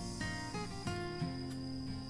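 Background music led by acoustic guitar, with a steady high cricket trill running underneath.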